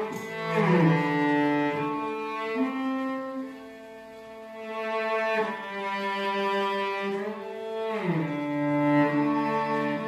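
Slow background music played on bowed strings, low, cello-like sustained notes that swell and fade and change pitch every two to three seconds, with a couple of sliding descents.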